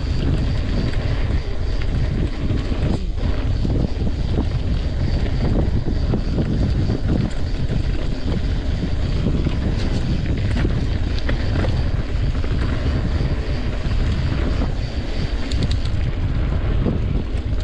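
Wind rumbling on the camera microphone while a cross-country mountain bike rolls fast down a dirt singletrack, its tyres rumbling over the trail, with scattered clicks and rattles from the bike.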